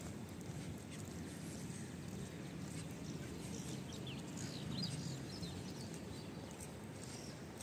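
Open-air ambience: a steady low rumble, with a few quick, high bird chirps about three and a half to five seconds in.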